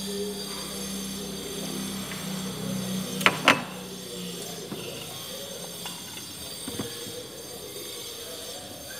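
Handling noise: two sharp clicks close together a little past three seconds in, then a few fainter taps, over a steady low hum.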